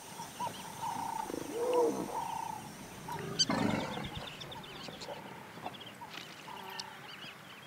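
Savanna wildlife sounds: wild animal calls, with a louder cry about three and a half seconds in, followed by quick repeated bird chirps.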